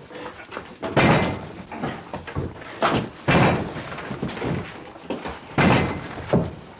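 A series of heavy slams, about five in all, irregularly spaced, each dying away quickly.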